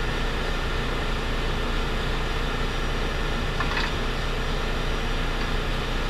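Steady machinery noise of a ship's engine room: a constant low hum and hiss from running plant and ventilation.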